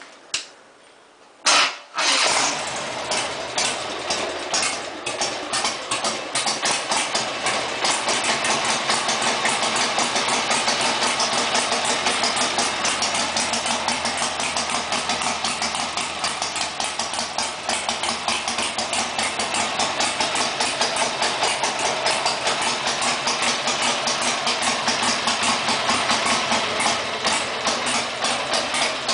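A freshly tuned engine started up: a click, a brief burst as it catches about two seconds in, then idling steadily with an even, pulsing exhaust beat.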